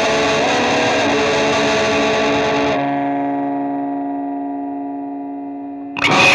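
Rock music with distorted electric guitar. About three seconds in the band drops out and a single held chord rings on, slowly fading, until the full band crashes back in near the end.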